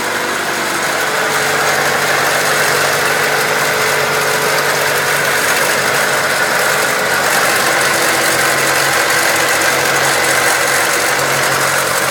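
1999 Acura Integra engine idling steadily, with a rattle coming from the engine bay.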